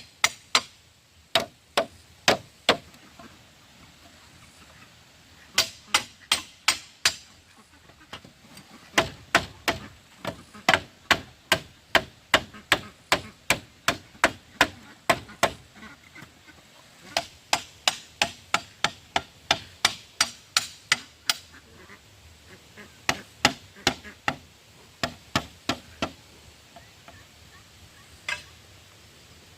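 Repeated sharp tool strikes on wood, in runs of several blows two or three a second with short pauses between runs.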